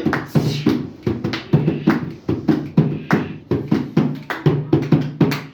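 Hand drum played in a fast, driving rhythm of several strokes a second, the deep strokes alternating with sharper slaps.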